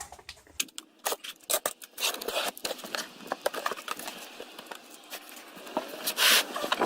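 Cardboard box and packaging being opened and handled: a run of clicks, scrapes and crinkling, with a louder rasping burst about six seconds in.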